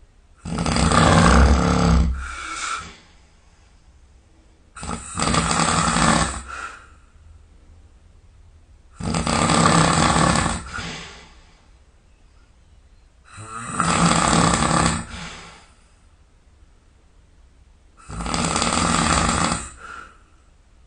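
A person snoring loudly: five long, rasping snores about four seconds apart, each lasting around two seconds, with quiet breathing gaps between.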